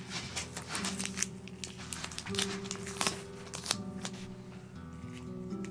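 Soft background music, over intermittent crinkling and sharp little clicks as hands handle adhesive tape pads and press them onto a fabric mat.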